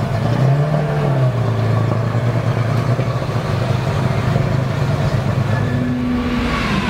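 BMW F13 M6's twin-turbo V8 running at idle while parked, with a short rise in revs about half a second in that falls back within a second, then a steady idle.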